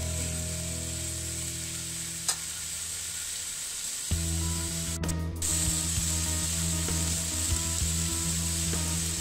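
Cut vegetables frying in oil in a karahi, sizzling steadily, with a few sharp clicks of the spatula scraping the pan as they are stirred. A steady low hum runs underneath and drops out briefly a little before the middle.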